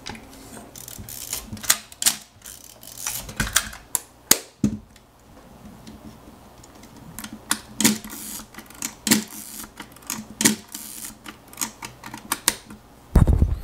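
Nikon FE2 35mm film camera being loaded with film and readied: a run of irregular, sharp mechanical clicks and clacks from its back door, film-advance mechanism and dials, several of them loud.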